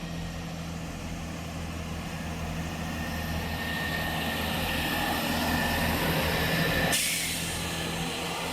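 Class 165 diesel multiple unit's underfloor diesel engines running with a high whine, growing steadily louder as the train sets off. About seven seconds in, the whine stops and a burst of air hiss begins.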